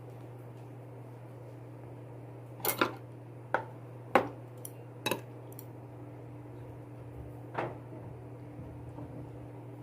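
Eating utensils clinking against a dish of food: a scattered run of sharp clinks between about three and eight seconds in, the loudest about four seconds in, over a steady low hum.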